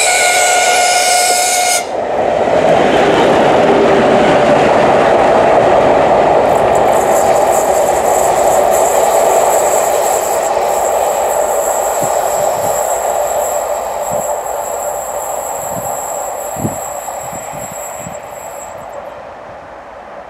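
TEP70 diesel locomotive sounding its horn, one steady tone that cuts off after about two seconds. Then its V16 diesel engine runs loud as the locomotive passes, with a thin high squeal over it for much of the pass, and the sound fades away gradually over the last several seconds.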